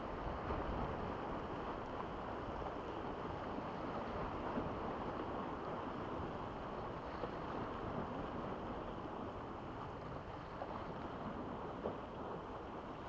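Sea waves washing against rocks at the shore, with wind on the microphone, a steady rushing noise; a faint click or two near the end.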